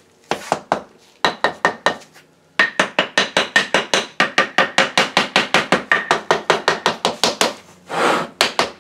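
Rapid light rapping of a small tool against a wooden sand-casting mold box (cope and drag), to break the rammed sand loose before the box is separated and the pattern drawn. It starts as a few short runs of taps, then becomes a steady fast run of about six taps a second, with a brief scrape near the end.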